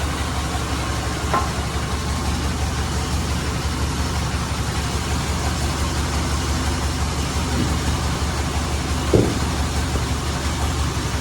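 Engine of a sawmill band saw running steadily with a low, pulsing drone. A brief knock comes about a second in, and a louder one near the end.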